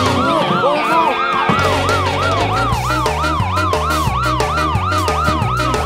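Police siren yelping rapidly up and down, about three sweeps a second, over children's background music with a bass line and a steady beat.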